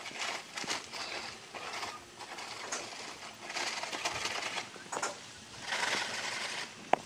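Dry cement pouring out of a sack onto a heap of sand, coming in irregular hissing rushes as the sack is shaken, with the sack rustling.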